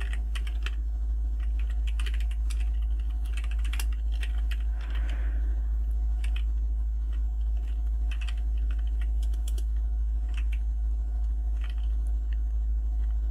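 Typing on a computer keyboard: irregular, scattered keystroke clicks, over a steady low electrical hum.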